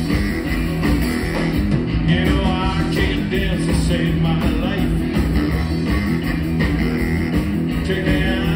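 Rockabilly band playing live: hollow-body electric guitar, upright double bass and drum kit, heard from within the audience.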